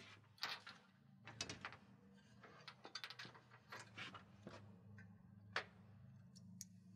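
Faint, scattered clicks and light knocks as a solar panel's metal frame is set down onto the racking rails and the clamp hardware is handled, over a low steady hum.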